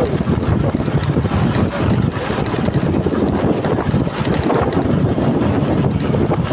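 Wind buffeting the microphone: a loud, steady rumble with no clear pauses.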